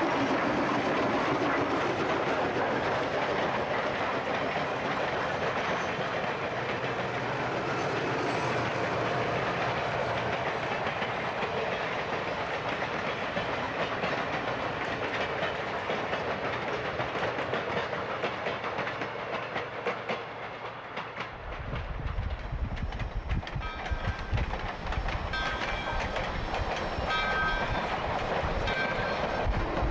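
Soo Line 2719's steam passenger train passing close: a steady rush of the 4-6-2 Pacific locomotive and the passenger cars rolling over the rail joints. About two-thirds of the way through the sound turns to a heavier low rumble with short high-pitched tones recurring over it.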